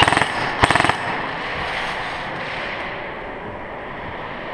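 Airsoft rifle firing two short full-auto bursts of rapid shots, one right at the start and another just before a second in.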